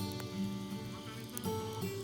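Instrumental background music: sustained notes that change every half second or so.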